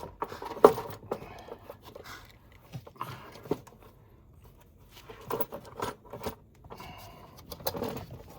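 Metallic clinks, knocks and scrapes of hand tools and parts on an engine as its valve cover is being taken off, with a sharp knock about a second in and further clusters of clatter later.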